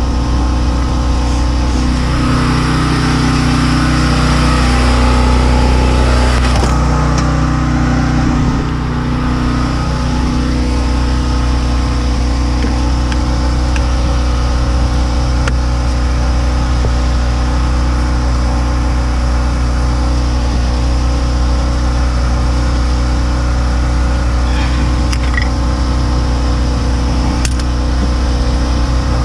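A steady, loud, low engine hum runs throughout, with a noisy rush over it that eases a little about eight seconds in.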